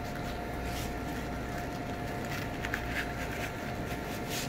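Faint, scattered scrapes and small clicks of a fillet knife working between snapper skin and flesh against a plastic cutting board, over a steady background hum with a thin constant tone.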